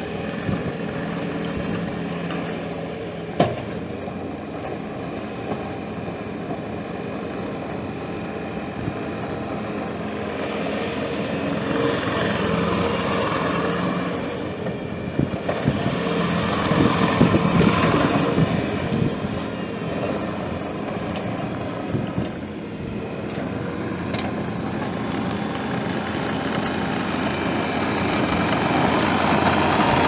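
Four-cylinder diesel engine of a 2014 Bobcat T590 tracked skid steer running steadily, growing louder twice as the machine works, with a sharp knock a few seconds in.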